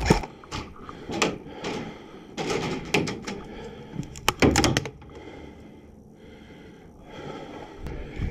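Irregular wooden knocks and thuds in a small room, several in the first five seconds, then quieter.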